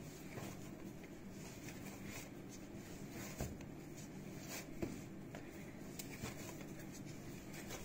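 Hands kneading a ball of bread dough on a countertop: faint soft pressing and rubbing, with a few light knocks.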